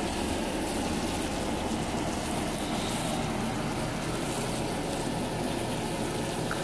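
Carpet-cleaning equipment running steadily as a fine stream of rust remover is sprayed onto the carpet: an even, unbroken hiss and hum at a constant level.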